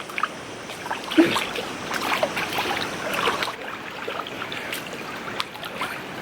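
Pool water splashing and trickling, with many small irregular splashes and drips.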